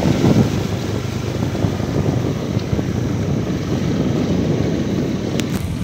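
Motorbike engine running steadily, heard from on board the moving bike, with wind rushing over the microphone.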